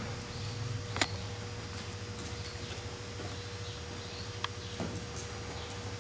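A gaited horse moving under saddle on soft arena dirt: muffled hoof footfalls and a few sharp clicks, over a steady low hum.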